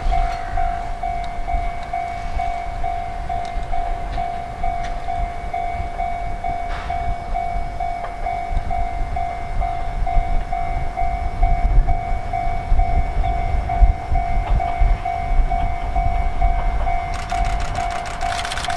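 A railway level-crossing warning bell rings in steady, even pulses, about two a second, over a low rumble as a Fujikyu 1000 series electric train approaches. Near the end the train passes close, its wheels clacking rapidly over the rail joints.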